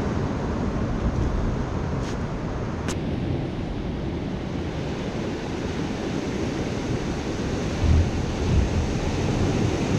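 Ocean surf washing against a rocky shore, with wind rumbling on the microphone. Two faint ticks about two and three seconds in.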